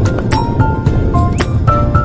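Background music: a melody of held notes over drum hits about every half second and a strong bass.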